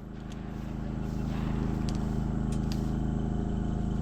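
A motor vehicle's engine idling steadily, its hum growing a little louder, with a few faint clicks.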